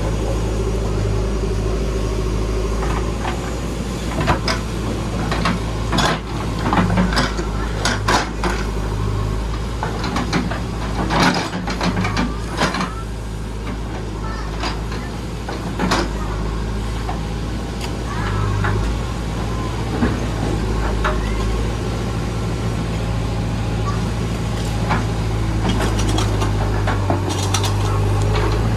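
JCB backhoe loader's diesel engine running steadily while digging, with scattered sharp clanks and knocks, most of them in the first half.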